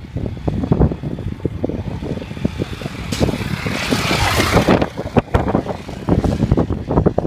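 Enduro trail motorcycle engine coming up a gravel track and passing close by. It is loudest and brightest as it goes past, about three to five seconds in, then fades as the bike rides away, over an irregular low rumble of wind buffeting.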